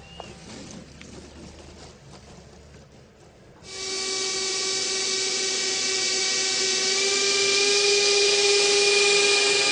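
Electric ducted-fan motors of a large model Me-262 jet start suddenly about four seconds in. They run with a loud rushing hiss and a high steady whine that slowly grows louder.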